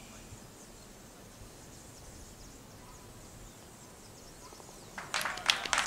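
A hushed golf green with faint birds and insects, then spectators burst into applause about five seconds in, greeting a holed putt.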